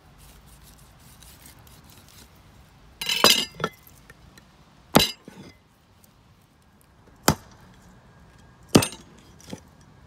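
A handful of sharp knocks and clinks of hard objects struck or set down: a short rattling cluster with a bright ring about three seconds in, then four single strikes a second or two apart, the last one weaker.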